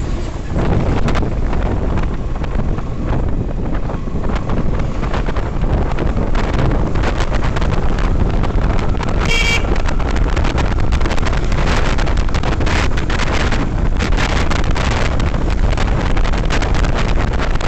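Wind buffeting the microphone over the low rumble of a Yamaha FZS V3 motorcycle's single-cylinder engine and road noise while riding, with one short vehicle horn honk about nine seconds in.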